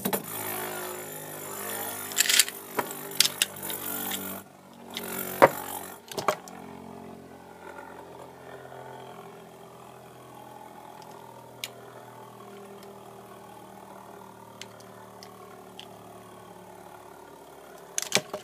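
A Beyblade spinning top, a vending-machine knockoff Wing Pegasus, launched into a plastic stadium: a sharp launch snap at the very start, then a loud whir with several knocks over the first six seconds, settling into a quieter steady hum as it spins near the centre.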